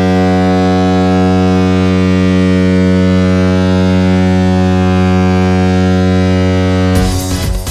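San Jose Sharks' NHL goal horn sounding one long, steady, low note. About seven seconds in it gives way to the goal song, electronic music with a driving beat.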